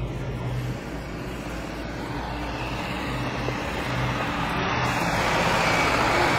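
Isuzu NPS 75/155 4x4 truck's four-cylinder turbo-diesel engine running as the truck rolls down a loose gravel and rock track and passes close by, tyres grinding over the stones. The sound grows steadily louder toward the end as it comes alongside.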